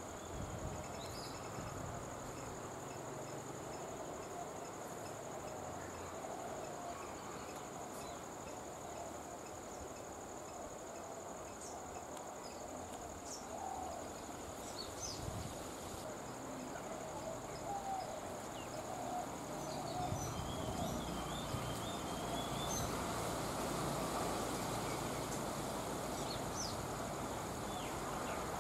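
Outdoor ambience: a steady high-pitched insect drone with scattered short bird chirps over a hazy background. A low rumble grows louder about two-thirds of the way through.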